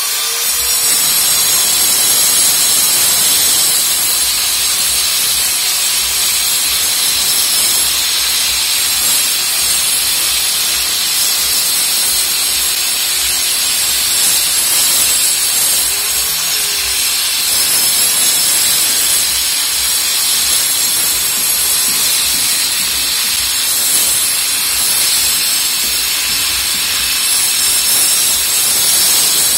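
Electric angle grinder with a cutting disc running steadily as it cuts a groove into a brick-and-mortar wall: a loud, even grinding hiss.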